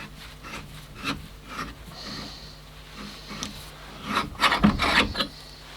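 Short, irregular scraping and rubbing strokes on a metal workpiece during lathe boring work, with a louder run of scrapes about four seconds in, over a faint steady machine hum.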